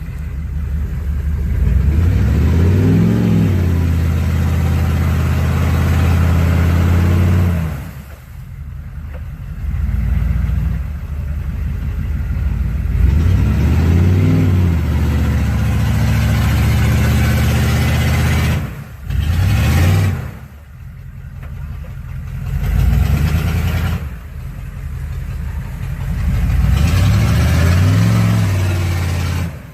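Off-road vehicle engine revving hard in repeated surges, the pitch climbing and falling again several times, with brief drops where the throttle is let off.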